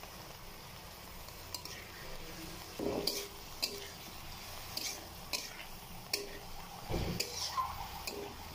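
A black slotted spatula stirring diced chicken and onions in hot oil in a metal pan, with irregular scrapes and knocks against the pan, the loudest about three seconds in and near seven seconds, over a low frying sizzle.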